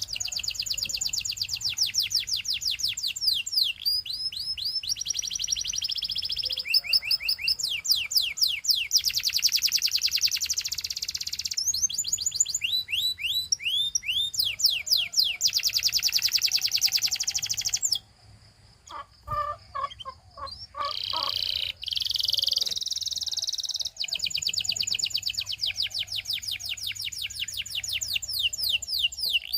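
Canary singing a long rolling song: runs of rapid repeated down-slurred notes, each run changing speed and pitch every second or two. About eighteen seconds in the song breaks off briefly for a few lower, separate notes, then the fast trills resume.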